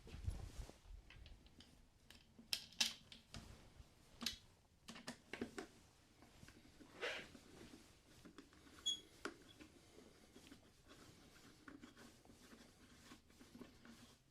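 Scattered light clicks and taps of hand tools and small parts being handled, with a short scrape about halfway through.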